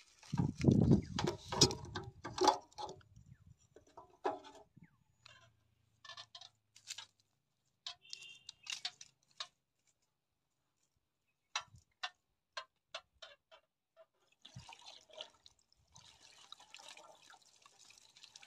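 Clattering knocks as the filler cap on a Kamco ER 90 diesel engine is handled, a few sharp clicks, then liquid pouring from a jug into the engine's filler near the end.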